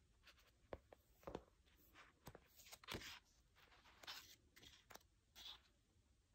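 Faint handling of a paperback manga volume: soft clicks and short papery swishes as it is turned over and its pages are flipped.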